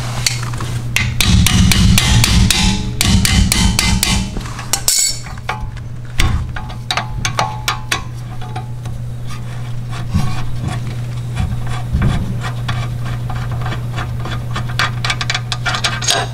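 Hand tools clicking and clinking on the rear brake caliper bolts of a Mercedes CLA as the 13 mm caliper bolts are undone with wrenches. There is a quick run of clicks in the first few seconds, then scattered clicks over a steady low hum.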